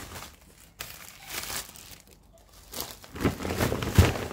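Plastic grocery bags and packaging crinkling in bursts as produce is handled, with a sharp thump about four seconds in, the loudest sound, as something is set down.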